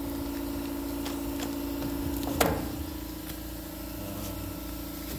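A steady mechanical hum of a running engine or machine, with one sharp click about two and a half seconds in; the hum eases a little after the click.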